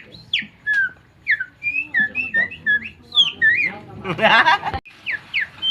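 A man whistling imitations of songbird song: a fast run of short chirps and whistled notes, mostly sliding downward, with a short raspy trill about four seconds in.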